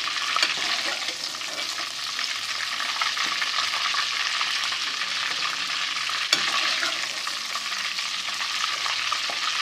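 Beef koftas frying in hot ghee in a kadhai: a steady sizzle, with two sharp clicks, one about half a second in and one a little past six seconds.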